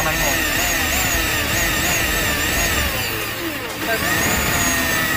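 Electric drill running under load as its bit cuts through a metal plate, throwing curled shavings: a steady whine with a grinding cutting noise. The load eases briefly about three and a half seconds in.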